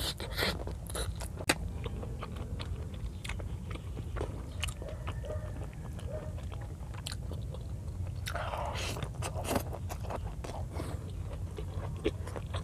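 Close-miked chewing and biting of chicken neck adobo, with many short wet clicks and smacks and some crunching. A louder rustling stretch comes about eight seconds in, over a steady low hum.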